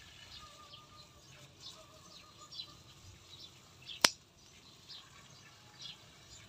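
One sharp snip of scissors cutting through a bougainvillea stem about four seconds in, with faint bird chirps throughout.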